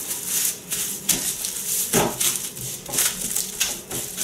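Plastic cling film crinkling and rustling as hands fold it around a block of cookie dough and press it flat, in a run of irregular crackles.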